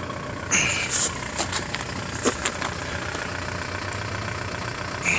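Vehicle engine idling steadily, with a few brief rustles and knocks in the first two and a half seconds.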